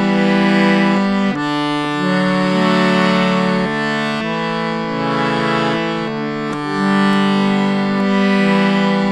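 Instrumental music of long held chords, the notes shifting every second or two, with no singing.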